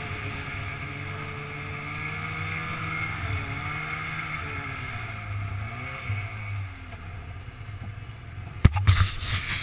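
Snowmobile engine running while riding on a snowy trail, its pitch rising and falling as the throttle changes. A few loud sharp knocks near the end.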